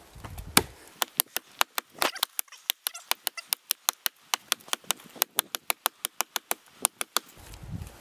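Rapid chopping strikes into a fallen log, a run of sharp cracks about five a second that stops near the end.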